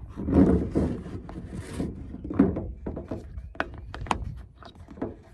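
Parts of an automatic waterer's float valve being handled and fitted together: dull knocks and bumps with sharp clicks, a quick run of clicks about three and a half to four seconds in.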